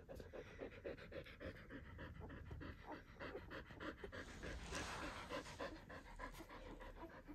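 Adult Eurasier dog panting, quick even breaths in a steady rhythm.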